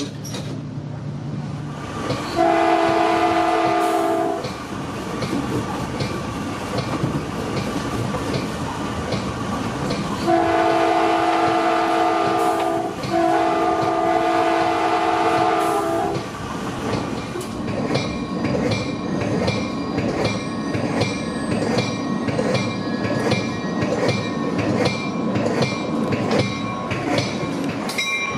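Caltrain commuter train's horn sounding three chord blasts from the leading cab car: one about two seconds in, then two more close together near the middle, the last the longest. It plays over the steady running noise of the train on the rails, which in the second half turns into a rapid, even ticking with thin high ringing tones.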